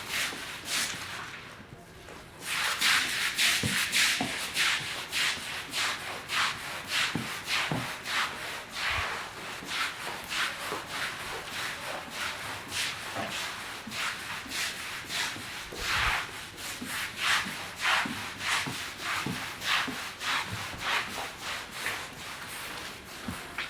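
Repeated strokes of a hand tool rubbing and scraping across a mud-caked carpet, about two strokes a second, starting after a brief pause near the beginning.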